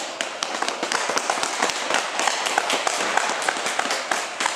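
Scattered applause from a small crowd of spectators: many separate hand claps in an irregular patter.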